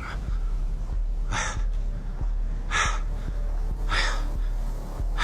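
A person breathing hard, four heavy breaths about a second and a half apart over a low rumble: winded by the thin air at high altitude.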